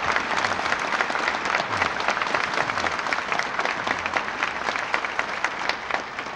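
Audience applauding: dense, steady clapping from many hands, thinning out near the end.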